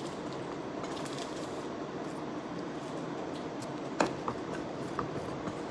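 Steady background hiss of a quiet room, with one sharp click about four seconds in and a few faint ticks after it.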